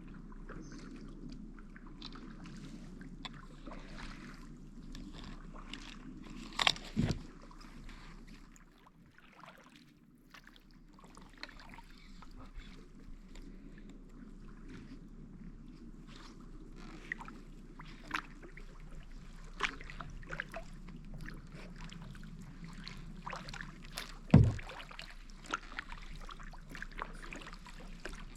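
Kayak paddling: paddle strokes with water splashing and dripping off the blades. Two sharp knocks stand out, one about seven seconds in and a louder one late on.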